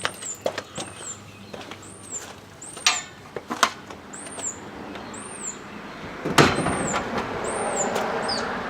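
Metal roof basket being handled on a car's roof rack crossbars: scattered knocks and clinks, then a loud clunk about six seconds in followed by a couple of seconds of scraping as it is slid into position.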